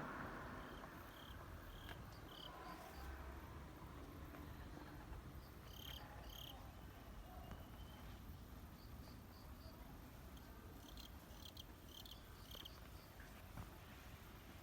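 Quiet outdoor ambience: the last of a passing train's noise dies away in the first second or so. Then faint, short, high chirps repeat in small groups of three or four over a low background rumble.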